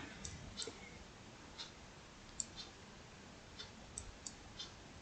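Faint, irregular computer mouse clicks, about nine scattered through the few seconds.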